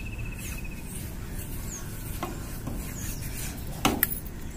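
Rubbing and handling noises with two sharp knocks close together about four seconds in, over a steady low background; short chirps of birds are faint behind.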